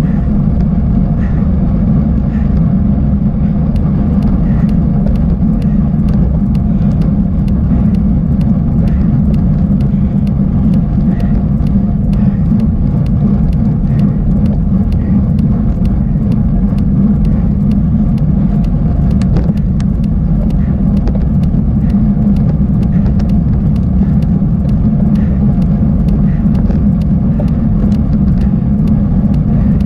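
A bicycle ridden over a rough, broken dirt track: a loud, steady low rumble with frequent rattling clicks throughout.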